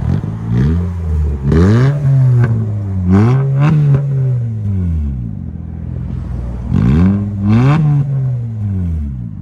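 A 2011 Honda CR-Z's 1.5-litre engine, straight-piped with the resonator and muffler cut out and a turndown tip, is revved in a series of quick throttle blips. It settles back toward idle about five seconds in, then gets two more quick revs near the end.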